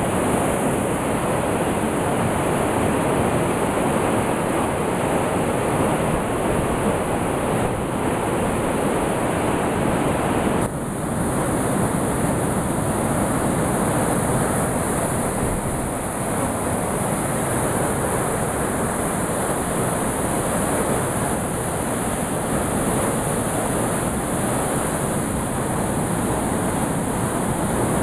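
The flooded Weiße Elster river rushing fast and loud in a steady roar of water, broken by one brief dip a little over ten seconds in.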